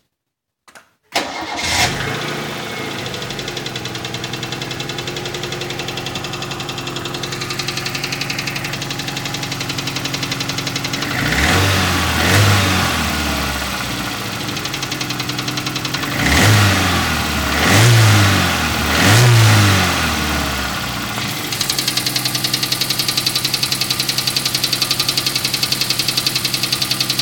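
Toyota 4A-GE twin-cam four-cylinder engine started about a second in, flaring briefly before settling into a steady idle. Near the middle it is blipped up and back down about four times, then returns to an idle with a steady pulsing beat.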